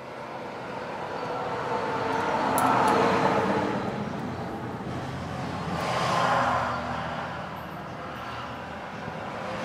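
Road vehicles passing by: two rising-and-fading swells of motor and tyre noise, the first peaking about three seconds in and the second about three seconds later.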